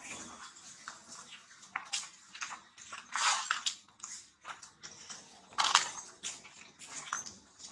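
Dry leaf litter crackling and crunching under monkeys moving over it, in many short irregular crackles with two louder crunches about three seconds and five and a half seconds in.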